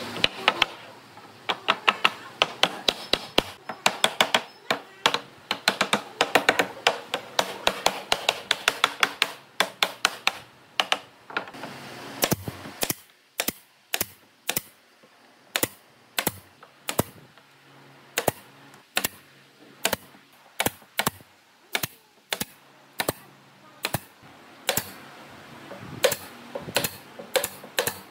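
Pneumatic nail gun firing repeatedly into old railway-sleeper wood, each shot a sharp snap. For about the first ten seconds the shots come quickly, about three a second, then slow to roughly one or two a second.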